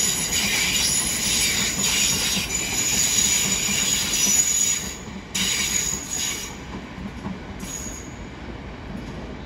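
Class 350 electric multiple unit pulling out slowly, its wheels squealing in several high tones over a steady rumble. The squeal fades about five seconds in, leaving a quieter rumble.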